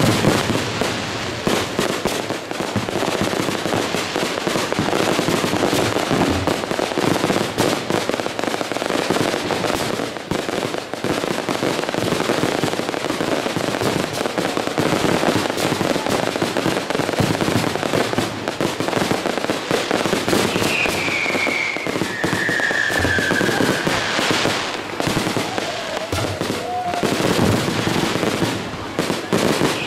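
Aerial fireworks display in full barrage: a continuous run of overlapping bangs and crackling from bursting shells. Past the middle, a falling whistle cuts through for a few seconds.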